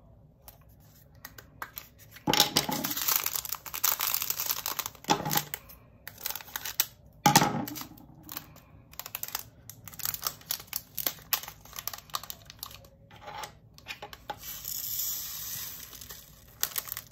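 Small plastic bags of round resin diamond-painting drills crinkling as they are handled and cut open with scissors, with scattered clicks of the tiny drills and plastic storage containers. Near the end the drills pour into a plastic container with a light rattling hiss.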